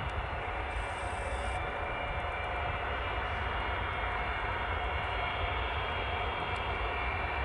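Antonov An-124's four Progress D-18T turbofan engines at taxi power: a steady whine over a low rumble.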